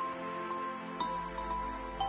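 Soft new-age background music: sustained tones with a gentle melody whose notes change about once a second.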